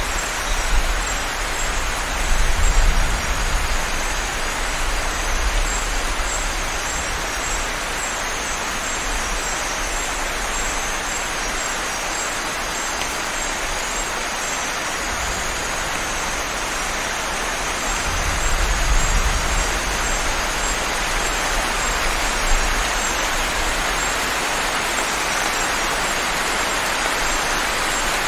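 Heavy, steady rain. Low thunder rumbles about two seconds in and again around eighteen seconds in.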